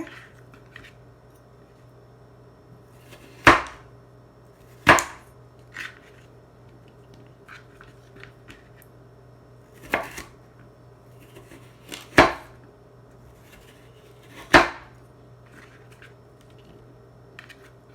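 Sharp knife slicing through raw sweet potato and knocking down onto the cutting board: five loud strikes spaced a few seconds apart, with a few fainter taps between.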